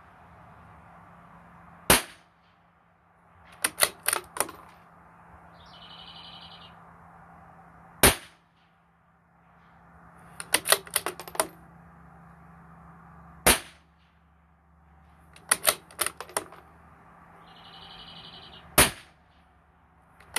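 A .22 LR bolt-action rifle firing subsonic RWS Target Rifle match ammunition: four single shots about five seconds apart. About two seconds after each shot comes a quick run of metallic clicks as the bolt is worked to eject the case and chamber the next round.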